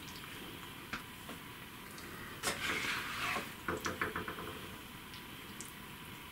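A serving spoon tapping and scraping on a ceramic plate as it pushes saucy chicken curry around. There is a single tap about a second in, a scrape a little before the middle, and then a quick run of small taps just after the middle.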